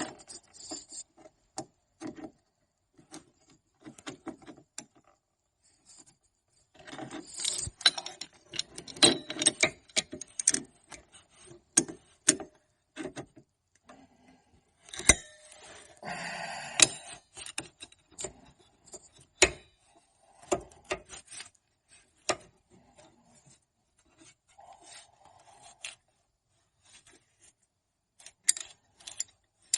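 Irregular clicks, taps and short scrapes of hand tools and metal parts being handled, with a longer scraping rub about sixteen seconds in.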